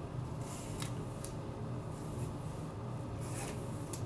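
Rat-tail comb scratching through wig hair while a middle part is drawn: a few short, irregular scratchy strokes over a low steady hum.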